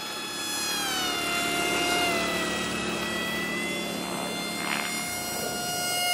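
Electric motor and propeller of a cardboard RC model F-22 in flight: a high whine whose pitch falls over the first two seconds or so and then holds steady, over a rushing hiss.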